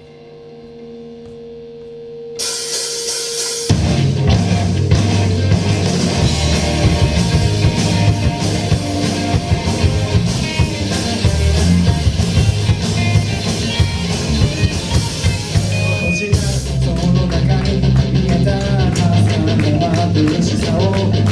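Live rock band of electric guitars, bass and drum kit opening a song. Sustained guitar tones swell at first, cymbals come in about two seconds in, and the full band crashes in at about four seconds and plays on loudly.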